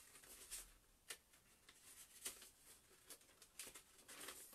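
Near silence: room tone with a few faint rustles and light clicks of something being handled.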